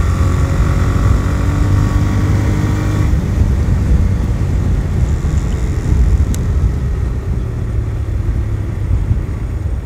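TVS Raider 125's single-cylinder engine running at speed while riding, with heavy wind rumble on the handlebar-mounted phone's microphone. The engine note fades about three seconds in, leaving mostly wind and road rumble.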